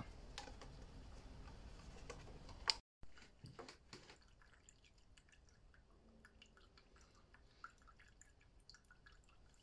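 Faint, scattered drips of liquid falling from the opened drain screw at the bottom of a diesel fuel filter's sediment bowl into a paper cup, as the bowl is drained.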